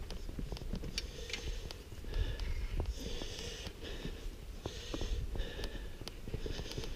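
A climber breathing hard and steadily, a breath roughly every second, with scattered light clicks and knocks of hands and gear on rock and a low wind rumble on the microphone.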